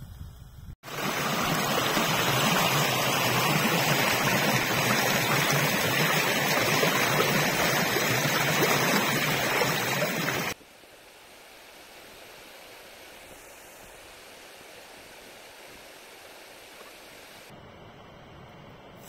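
Shallow, fast river rushing over rocks, a loud, steady rush of water. About ten seconds in it cuts off abruptly, leaving a much quieter, steady hiss.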